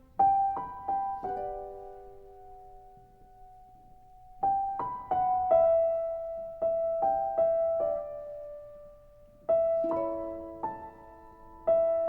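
Solo piano playing a slow, gentle melody in three short phrases, each note struck and left to ring and fade, with a quiet held pause after the first phrase.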